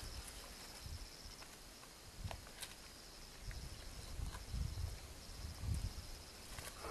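Quiet bush ambience: a steady high, pulsing insect trill, with a few soft low thuds and scuffs.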